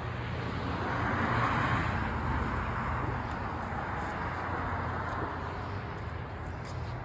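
Road traffic: a vehicle's steady noise swelling during the first two seconds and slowly fading, as a car passes.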